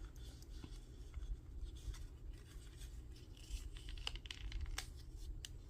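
Scissors snipping notches into a paper strip: faint scattered snips and paper rustles, over a low steady hum.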